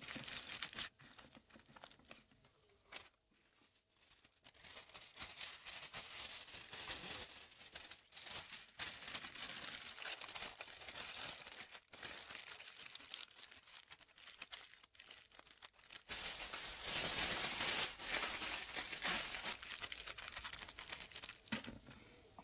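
Thin kitchen tin foil being scrunched and wrapped by hand around a foil shape, crinkling and crackling. It dies down briefly a few seconds in, and the scrunching is loudest near the end.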